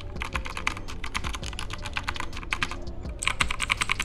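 Fast typing on a compact 61-key backlit keyboard: a rapid run of key clicks, several a second, coming thickest in a flurry near the end.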